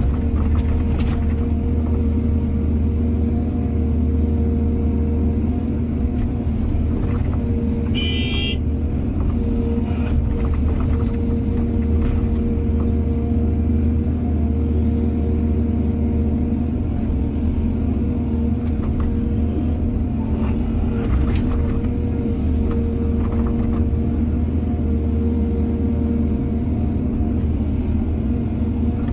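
Excavator's diesel engine running steadily under work, a constant low drone with a steady hum above it, and scattered knocks and clatter through it. A brief high-pitched squeak about eight seconds in.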